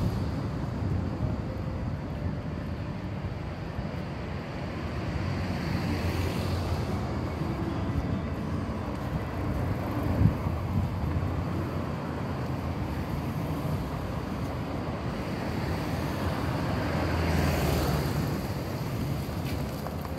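Road traffic beside the pavement: a steady hum of cars, with two vehicles swelling past about six and seventeen seconds in, and a short knock about ten seconds in.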